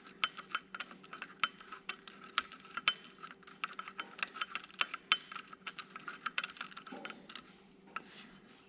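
Socket ratchet wrench clicking in quick, uneven strokes while a retainer bolt is run down on a Hercules 478 engine's camshaft. The clicking stops about seven seconds in.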